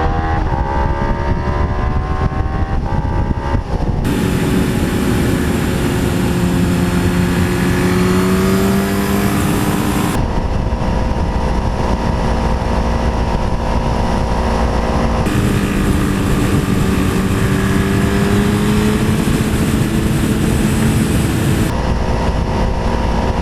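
Sport motorcycle engine running at road speed under strong wind rush, its pitch rising as the bike accelerates through the first few seconds, then holding fairly steady. The sound changes abruptly several times as it switches between two bikes.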